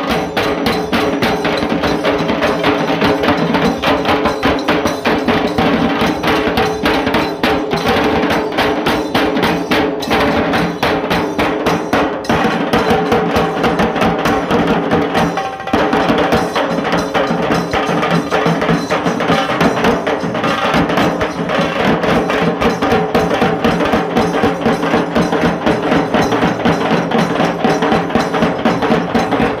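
Dhol tasa band drumming: fast, dense, continuous strokes, with steady ringing tones underneath. A very short break comes about halfway through.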